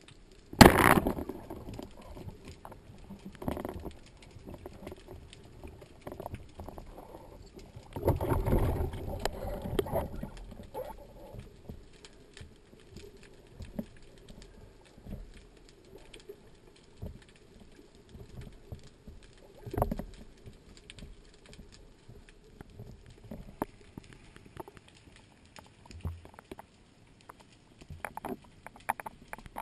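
Underwater sound picked up by a speargun-mounted camera: scattered clicks and crackles of the sea, with a loud rush of water about a second in and a longer one from about eight to ten seconds.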